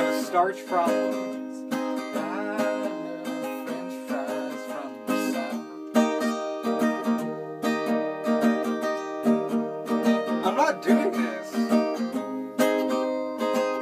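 Acoustic guitar played in a steady rhythm of chords, with a man's voice coming in briefly just after the start and again about ten seconds in.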